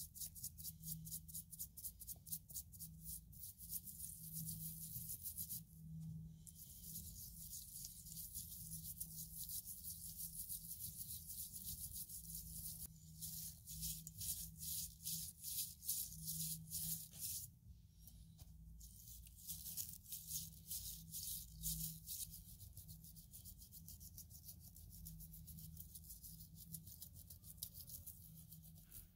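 A small bristle brush scrubbing a small plastic gear from a bicycle dynamo. It goes in fast back-and-forth strokes, about four or five a second, with a few short pauses.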